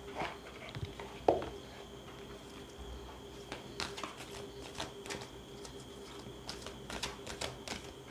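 A deck of angel oracle cards being shuffled by hand: a run of light, irregular card clicks and flicks, with one sharper tap about a second in, over a faint steady hum.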